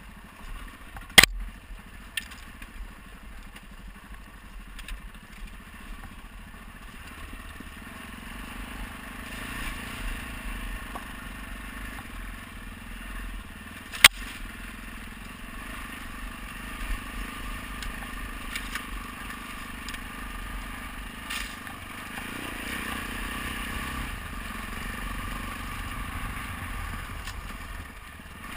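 Adventure motorcycle running at low speed over a rough, rocky dirt track, with stones crunching and the bike rattling over the bumps. Two sharp knocks, about a second in and about halfway through, are the loudest sounds.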